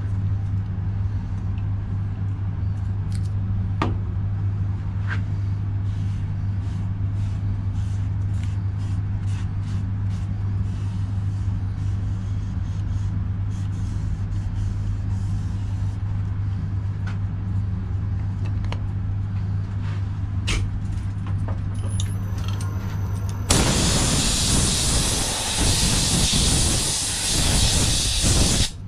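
Wood lathe running with a steady low hum. About 23 seconds in, a loud hiss of compressed air from an air gun aimed at the spinning bowl starts, lasts about five seconds and stops abruptly.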